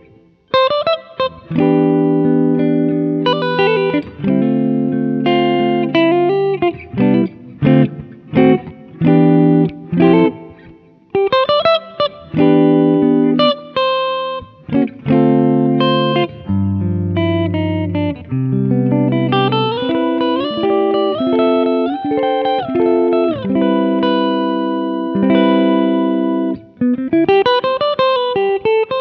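Tokai ALS62 Gold Top Les Paul-style electric guitar played with the pickup selector in the middle position, both humbuckers mixed: chords with short breaks between them, then single-note lines with slides in the second half. The tone is sweet and a little vintage.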